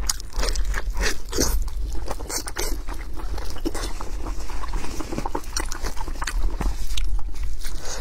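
Close-miked biting and chewing of braised pork head meat, a run of many irregular short clicks and smacks.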